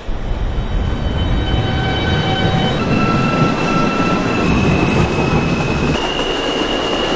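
New York City subway car running under way, starting suddenly: a loud steady rumble from the wheels and track, with high, thin, steady squealing tones that jump to new pitches twice.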